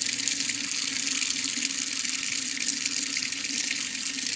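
Kitchen faucet running a thin stream into a stainless steel sink, a steady splashing hiss. It is running on the residual water left in the pipes after the automatic shutoff valve has closed the main supply.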